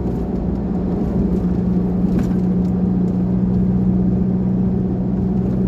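Four-wheel drive's engine and tyres droning steadily while driving, heard from inside the cab.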